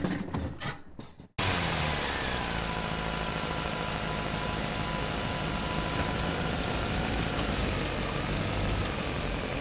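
A short noisy effect fades out in the first second or so. Then, a little over a second in, a big engine starts idling steadily, a monster-truck engine sound effect, its pitch sinking slightly.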